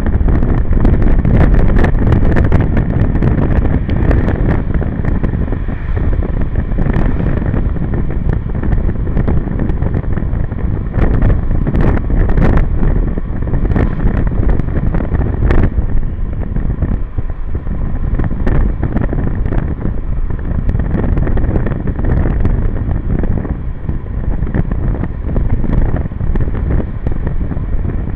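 Wind buffeting the microphone of a motor scooter riding on a wet road, over the hiss of tyres and engine, the level surging and dipping, with scattered sharp clicks.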